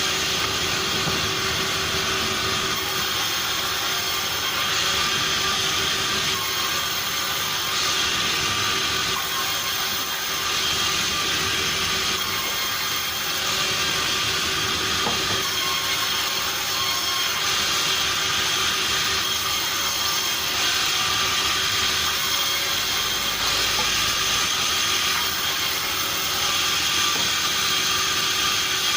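Sawmill machinery running steadily while acacia logs are milled: a dense, even mechanical noise with a few steady whining tones, its loudness shifting slightly every few seconds.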